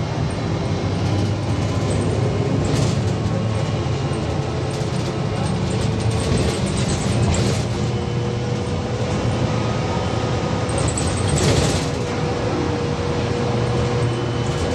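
Cabin noise of a VMZ-5298.01 trolleybus on the move: a steady rumble of tyres and body, a faint whine from the electric drive, and a few short rattles.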